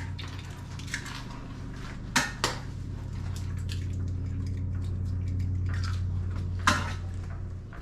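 Dishes and kitchen utensils clinking: a couple of sharp knocks about two seconds in and another near the end, over a steady low hum.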